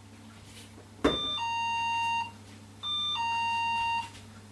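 Electronic doorbell ringing twice, each ring a two-note chime: a short higher note dropping to a longer, lower one.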